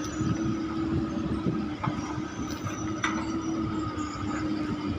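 Kobelco SK200 Mark 5 hydraulic excavator running, a steady engine tone over a rumble, with two sharp metallic clanks about two and three seconds in.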